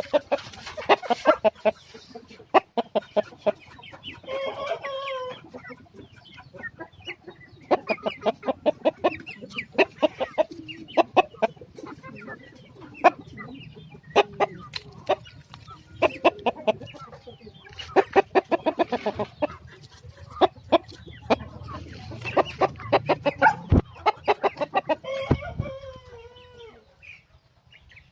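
Chickens clucking in quick runs of short, sharp notes, with a rooster's pitched call about four seconds in and a falling crow near the end.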